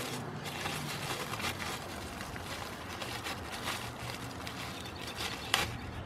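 Plastic bubble wrap crinkling and rustling as a small sensor is unwrapped by hand, with a sharp click near the end.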